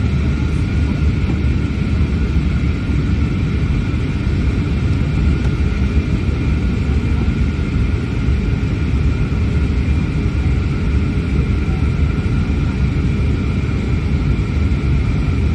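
Airplane cabin noise in flight: a steady rumble with a thin, even engine whine above it, unchanging throughout.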